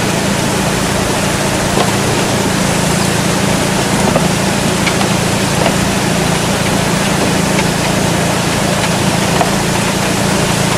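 Small engine-driven water pump running steadily, feeding water that rushes through a highbanker sluice box.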